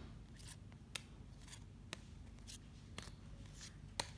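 Pokémon trading cards being flipped one at a time through a stack held in the hand, each card giving a faint crisp click, about two a second, the loudest near the end.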